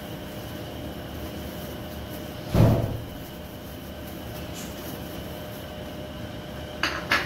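Shredded boiled chicken tipped from a glass bowl lands on boiled potatoes in another glass bowl with one soft thud about two and a half seconds in. Two light clicks come near the end, over a steady low hum.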